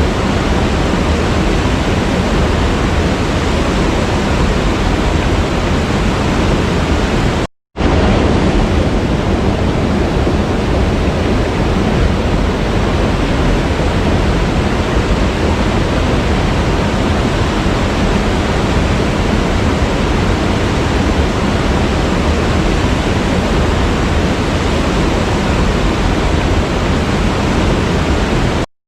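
Waterfall: a steady, dense rush of falling water. It drops out to complete silence for a split second about seven and a half seconds in, and again near the end.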